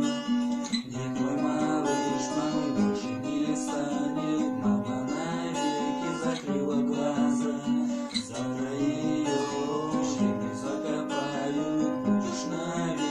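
Acoustic guitar strummed and picked through an instrumental passage of a song, with no singing.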